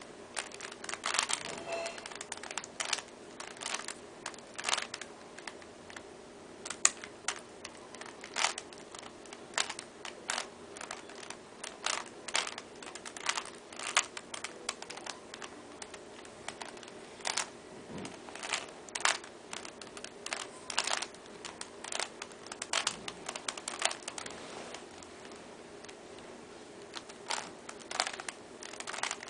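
Loose Rubik's Cube being turned by hand: plastic layers clicking and clacking in quick irregular runs of twists, with short pauses between.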